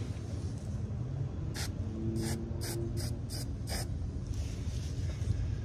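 Aerosol spray can of Rust-Oleum Rust Reformer hissing in about six short squirts in quick succession, then one longer, fainter spray near the end, as rust-inhibiting paint goes onto drilled holes in bare sheet metal.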